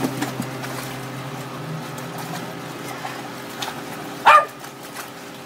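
A dog barks once, loud and short, about four seconds in, while dogs play in and around a plastic wading pool.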